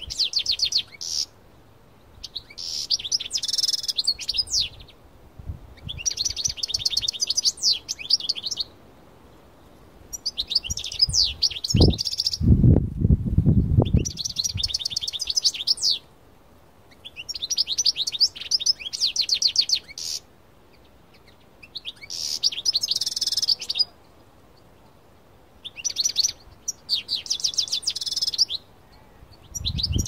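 European goldfinch of the parva race singing in repeated bursts of rapid twittering and trills, each phrase two to three seconds long with short pauses between. A brief low rumble about twelve seconds in.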